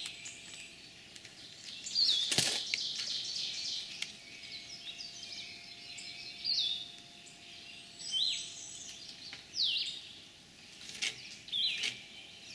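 Birds calling with short, repeated whistled notes that drop in pitch. One sharp knock about two and a half seconds in and a fainter click near the end come from handling at the log.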